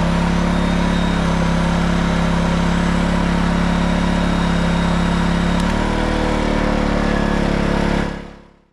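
Erayak 4500PD inverter generator's engine running steadily, powering an electric heat gun as a test load. About six seconds in, the engine tone shifts in pitch, and near the end the sound fades out.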